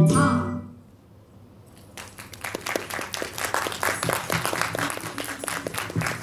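The music fades out in the first second, and after a short hush an audience breaks into applause about two seconds in, many hands clapping.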